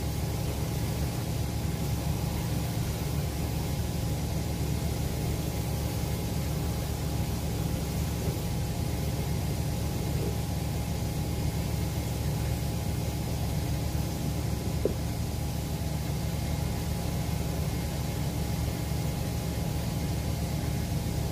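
Shoe repair finishing machine running with a steady motor hum, while a shoe's new heel and sole edge are held against its spinning wheel to finish them.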